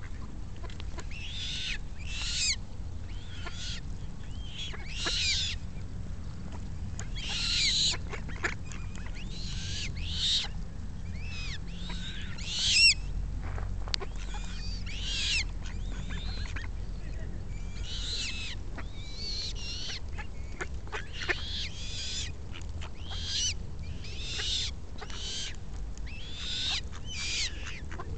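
Young Eurasian coots calling: a string of short, high-pitched calls with some gliding in pitch, about one a second, over a low steady rumble.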